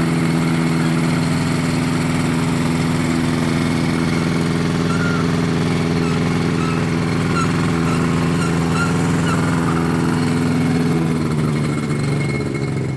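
Snedden M7 ultralight aircraft's engine and propeller running steadily at idle, easing off slightly near the end.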